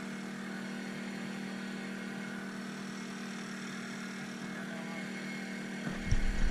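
A small engine runs steadily at one even pitch: the boat's inverter generator powering the lights. Near the end a sudden low rumble breaks in.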